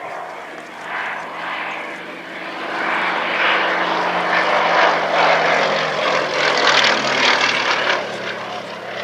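A Westland Lysander's Bristol Mercury radial engine and propeller droning as the aircraft flies past. It grows louder from about three seconds in and drops back near the end.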